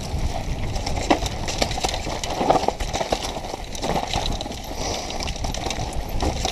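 Mountain bike descending a rough dirt trail, heard from a camera mounted on the rider: tyres rumbling over dirt, roots and rocks, with the bike rattling and knocking over the bumps.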